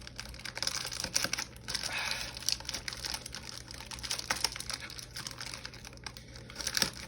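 Plastic packaging crinkling and rustling as toy parts are unwrapped and handled, with frequent small sharp clicks.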